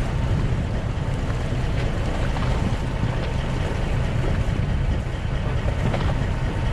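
Tour boat's engine running with a steady low rumble.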